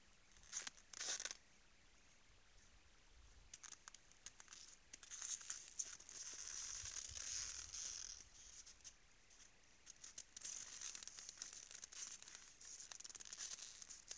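Faint crunching and crackling with scattered clicks from moose feeding at a salt lick in snow, coming in spells and heaviest through the middle and latter part.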